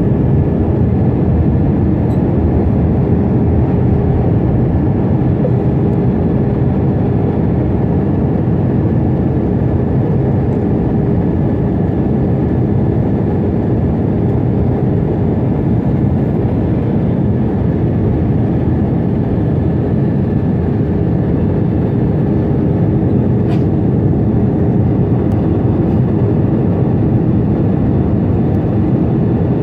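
Steady cabin noise inside an Airbus A321 airliner on its approach: a constant low rumble of engines and airflow with a faint steady hum running through it.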